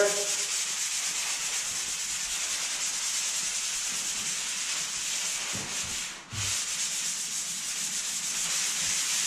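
Fine-grit sanding sponge rubbed by hand over dried setting-type joint compound on a drywall repair: a steady scratchy hiss, light sanding to smooth the patched imperfections, with a short break about six seconds in.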